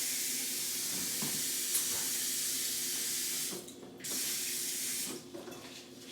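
Kitchen faucet running, filling a pan with a little water; the stream stops about three and a half seconds in, runs again briefly, then stops.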